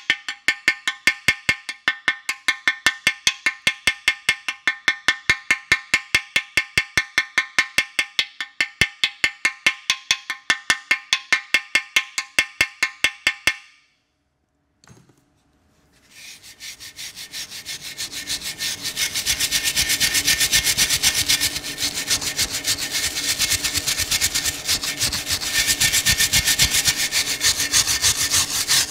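Ball-peen hammer peening a fresh flux-core weld on a freeze-cracked cast-iron Chrysler 361 big-block engine block: a long run of rapid, evenly spaced ringing blows, done to relieve stress in the weld. After a short break, a hand wire brush scrubs the weld bead, building up and then scraping steadily.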